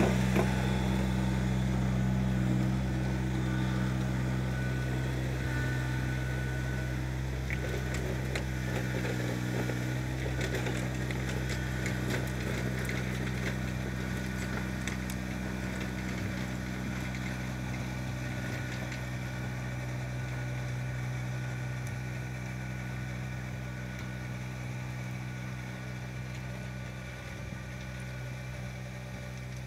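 Kubota BX subcompact tractor's three-cylinder diesel engine running steadily under load, driving a 52-inch chain-drive rotary tiller through the soil. The steady drone slowly fades as the tractor moves away.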